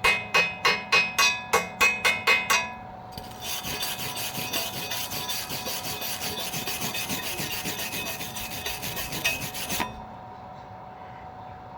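Ringing metal strikes, about three a second, stop about two and a half seconds in; then a fast, rasping scrub like filing or brushing runs for about six seconds and cuts off.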